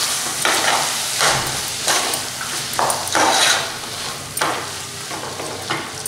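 Spoon stirring hyacinth-bean seeds and tomato masala in a metal pot over a medium gas flame, with repeated scraping strokes about once a second over a steady frying sizzle.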